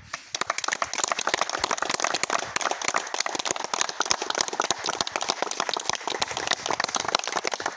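A small group of people applauding, steady dense hand-clapping.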